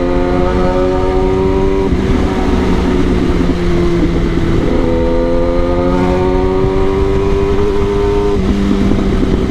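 Kawasaki ZX-10R's inline-four engine on the move, pulling steadily with its pitch slowly rising, over a heavy low wind rush. The engine note drops away about two seconds in and again near the end, then picks up.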